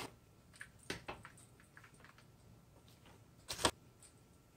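Quiet handling sounds of a spoon and shredded cheese in a stainless steel mixing bowl: a few faint clicks and rustles, then a sharper double click about three and a half seconds in.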